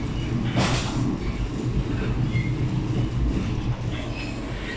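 Steady low rumble inside a Channel Tunnel shuttle train's vehicle-carrying wagon, with a short hiss about half a second in and a few faint high squeaks.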